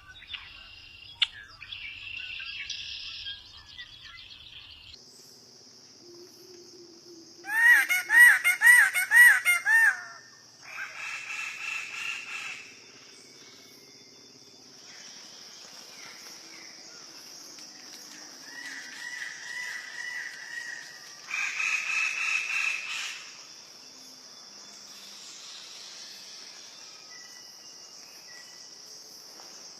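Birds calling over a steady high-pitched insect drone. About eight seconds in comes the loudest part, a quick run of repeated rising-and-falling notes, about four a second; it is followed by harsher, raspy calls and, later, another run of softer repeated notes.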